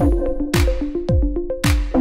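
Electronic background music with a steady drum-machine beat, about two kick drums a second, over held synth notes.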